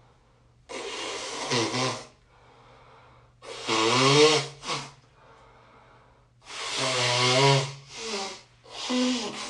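A person blowing a badly congested nose, about five wet blows with short pauses between, several of them honking. This is the sound of snot being forced out of a heavily blocked nose.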